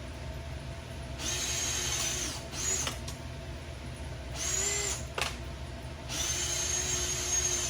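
Electric hand drill boring out rivet heads. It runs in four bursts with short pauses, the whine sagging in pitch as each burst ends.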